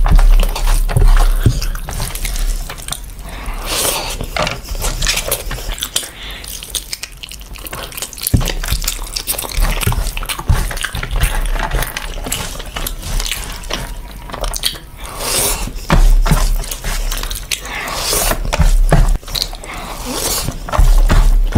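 Wet mukbang eating sounds: a bare hand squishing and scooping oily biryani rice, and a full mouth chewing with wet smacks and clicks, in uneven bursts.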